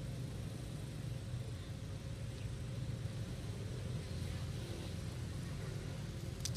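A steady low engine rumble with no change in pitch.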